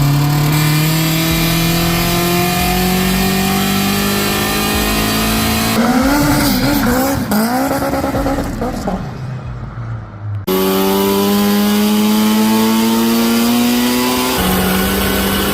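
Turbocharged Honda K20 four-cylinder engine of a Civic at full throttle, its note climbing steadily through the revs. The clips are cut together: in the middle the pitch warbles up and down unsteadily, and near the end the pitch drops suddenly, as at an upshift, then climbs again.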